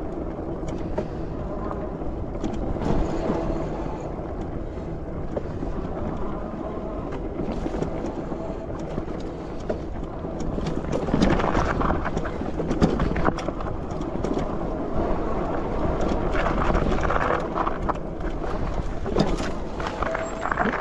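Trax e-bike riding over a rough, rutted dirt singletrack: continuous tyre and trail noise with the bike rattling and knocking over bumps, louder and bumpier from about halfway through.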